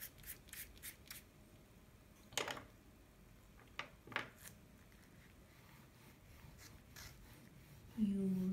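A hand brushing loose colour particles off drawing paper: a quick run of soft sweeps, about five a second, in the first second, then a few single strokes. Near the end a person's voice comes in with one long, steady held sound.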